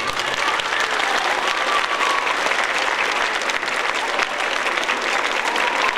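Audience applauding steadily right after the music stops.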